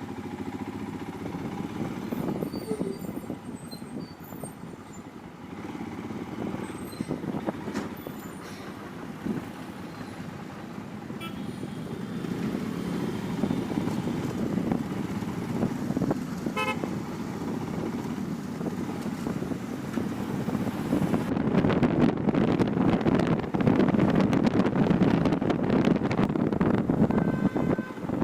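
Motorcycle riding in road traffic: steady engine and road noise with car horns honking. The noise grows louder from about two-thirds of the way through.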